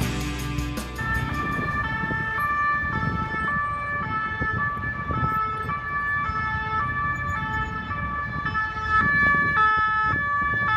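Emergency vehicle's two-tone siren, switching back and forth between a high and a low pitch about twice a second, over the hum of road traffic. It starts about a second in.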